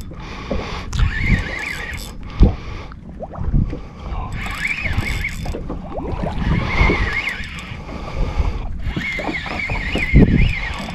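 Spinning reel squealing in short wavering bursts, five or so, while a hooked gilthead bream pulls against the rod, over wind buffeting the microphone.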